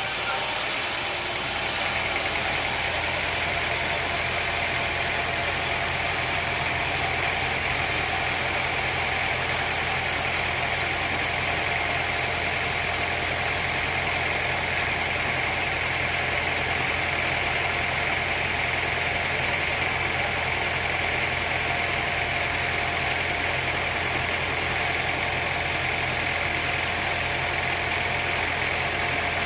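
Sawmill machinery running steadily: a constant low motor hum with a higher whine that swells a little through the middle.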